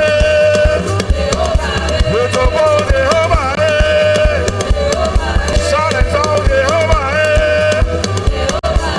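Live gospel praise music: a drum kit and bass keeping a steady beat under a melody of long held notes that slide between pitches, sung by a voice.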